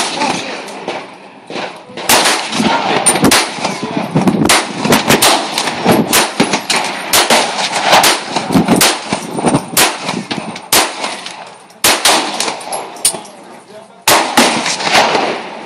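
Handgun shots, many sharp reports at irregular intervals, some close together and some left ringing briefly.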